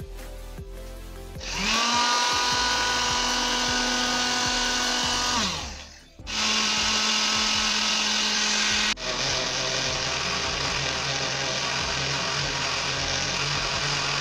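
Electric kitchen blender chopping pineapple: the motor spins up with a rising whine, runs at speed for a few seconds, winds down and stops, then starts again straight away. About 9 s in its note drops lower and it runs on steadily.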